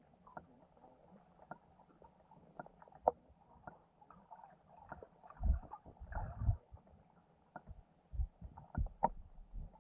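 Underwater sound picked up by a GoPro in its housing at the bottom of a lake: scattered faint clicks and ticks, with a few low thumps and rumbles about halfway through and again near the end.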